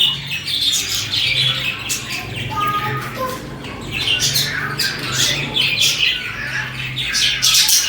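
Several budgerigars chirping, chattering and squawking together in a continuous dense stream of short high calls. A faint low hum runs underneath.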